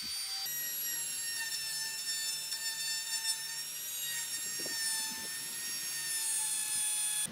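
Compact electric trim router running at full speed as its bit cuts shallow pockets into a hardwood board, a steady high-pitched whine.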